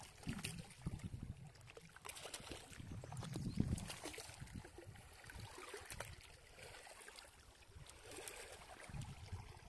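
A hooked fish thrashing and splashing in shallow water among reeds as it is drawn to shore, with the biggest splash about three and a half seconds in.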